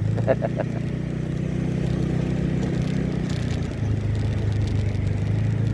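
A vehicle engine running steadily at low speed while driving along a rough dirt road, as a constant low hum that shifts slightly in pitch about two-thirds of the way through.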